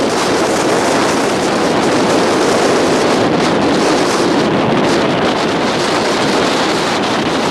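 Strong, steady wind blowing hard across the microphone in a ground blizzard, a dense rushing noise.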